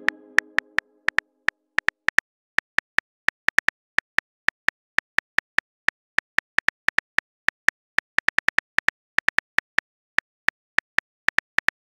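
Phone keyboard key-click sound effects as a text message is typed out: an irregular run of short ticks, around five a second with brief pauses. In the first second a chime from the previous message fades out.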